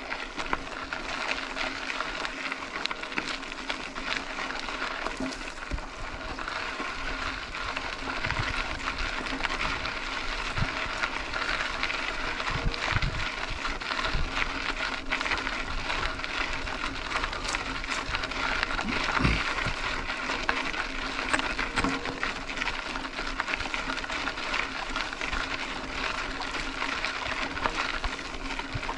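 Mountain bike rolling along a dirt road: a steady crunch of tyres on gravel, with many small clicks and rattles from the bike and a few low knocks over bumps.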